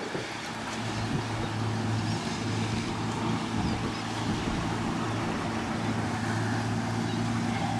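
Boat engine running with a steady low hum, over a constant hiss of wind and water.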